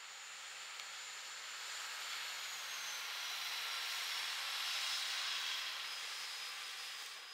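Two coupled DB Class 672 (LVT/S) diesel railcars passing by. Their running noise swells to a peak about five seconds in and then fades, with a high whine that drops in pitch as they go past.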